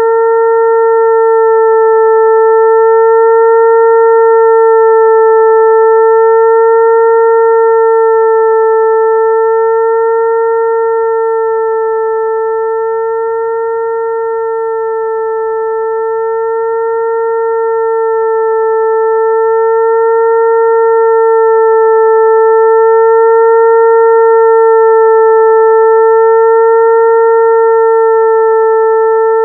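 Continuous hum imitating a mosquito's wingbeat, played as a lure to attract mosquitoes. It is one steady high tone with a few overtones, wavering slightly in pitch, with loudness that swells and sinks slowly, dipping about halfway through.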